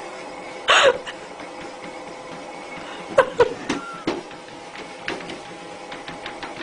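Treadmill motor running with a steady mechanical whine. A short, loud vocal cry comes about a second in, and a few sharp clicks and brief pitched calls come around three to four seconds in.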